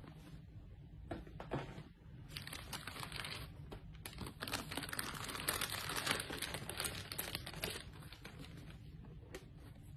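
Clear plastic bag crinkling as hands pull it back off a pair of sneakers in a shoebox, in two stretches, the longer one in the middle. A few light knocks from the cardboard box lid come in the first two seconds.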